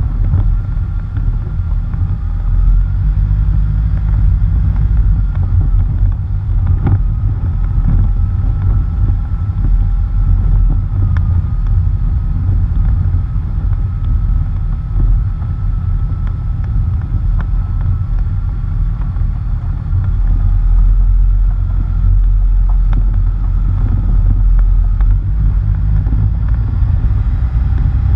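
Wind noise on a front-bumper-mounted GoPro's microphone and tyres running over a rough dirt road, with a faint steady whine above it and a few knocks from the road surface.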